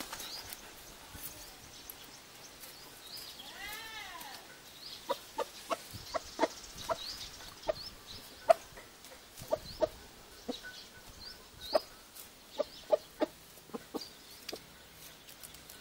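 Rooster clucking in short, sharp notes, scattered irregularly, with one longer rising-and-falling call about four seconds in.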